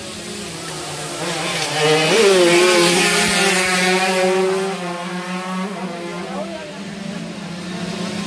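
Two-stroke 115cc underbone racing motorcycle engines running hard out of sight on the circuit: a steady buzzing note that swoops in pitch about two seconds in, grows louder, then fades back down after about five seconds.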